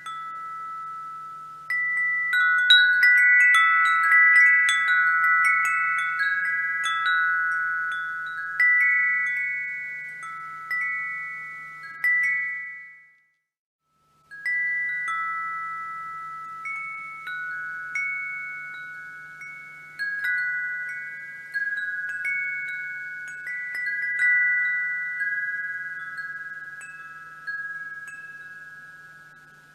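Wind chimes ringing: about five high notes struck in an irregular jangle, each ringing on and fading. Around a third of the way in they die away to a second of silence, then start again.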